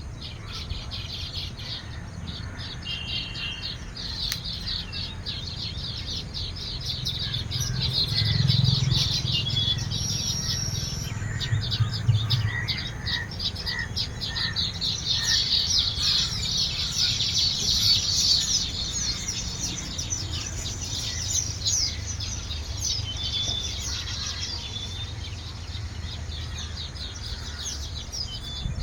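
Weaver birds chirping and chattering at their nests: a dense flock of overlapping high chirps, busiest through the middle, over a low rumble.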